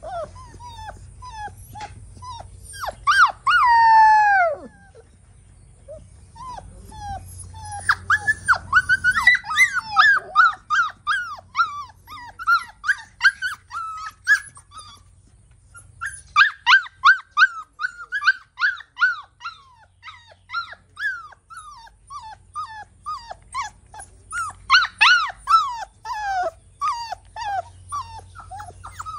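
Husky puppies whining and crying in fast runs of short, high cries that fall in pitch. There is a longer drawn-out falling cry about three seconds in and another near the end.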